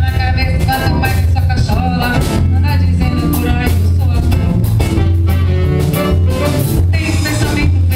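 Live band music with a strong steady bass line and regular percussion beats, with pitched melody parts above.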